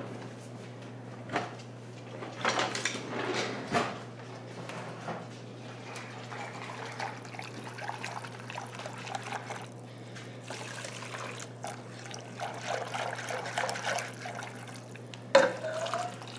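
Thick cheese sauce being poured from a saucepan over broccoli in a pot, with a few sharp knocks against the pans, the loudest near the end as the saucepan is emptied. A steady low hum runs underneath.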